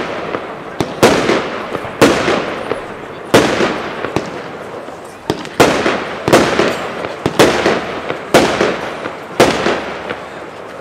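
VOLT! Pryzm 20-shot fireworks battery firing: a sharp bang about once a second, each followed by a noisy tail that fades over about a second as the shots burst.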